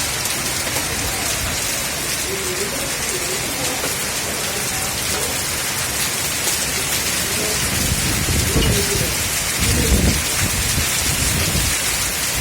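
Heavy rain pouring steadily. A low rumble of thunder builds from about eight seconds in and is loudest around ten seconds.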